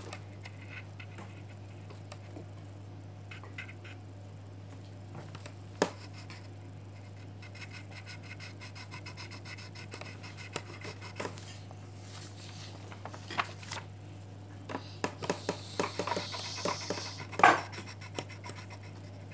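Pencil scratching on a sheet of paper in short drawing strokes, sparse at first and busier near the end, with one louder sharp scrape near the end. A steady low hum runs underneath.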